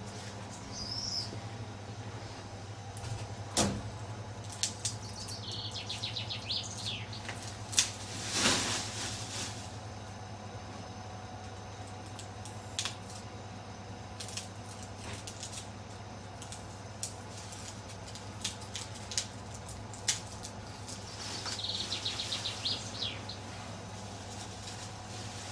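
Foam packing peanuts rustling and clicking as a toddler stirs them by hand in a cardboard box, over a steady low hum. A bird chirps in short fast trills twice, about six seconds in and near the end.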